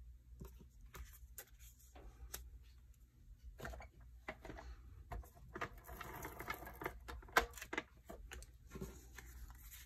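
Faint rustling and scattered light clicks of cut cardstock pieces being handled and slid on a cutting mat, denser from about four seconds in, with a sharper click as a plastic tape-glue dispenser is picked up near the end.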